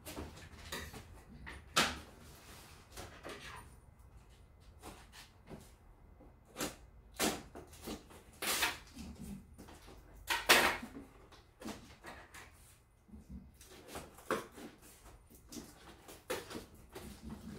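A cardboard box being cut and pried open by hand: scattered knocks, scrapes and rustles of cardboard, with a few sharper rasps, the loudest about two, seven, eight and a half and ten and a half seconds in.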